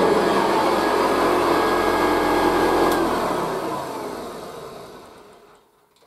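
A c1966 Hoover Convertible 1060 upright vacuum cleaner running, then switched off with a click about three seconds in. Its motor and fan wind down, falling in pitch and fading to silence over the next few seconds.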